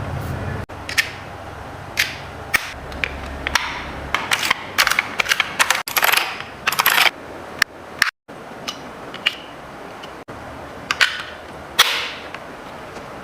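Irregular sharp plastic clicks and taps from keyboard keys and keycaps being handled during cleaning, some in quick clusters, with a few short brushing scrapes.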